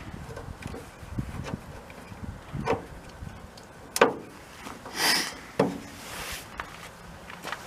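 Scattered knocks and clicks of tools and metal parts being handled during work on a VW split-window bus's rear cargo door mechanism, with a sharp knock about four seconds in and a brief scraping rustle just after.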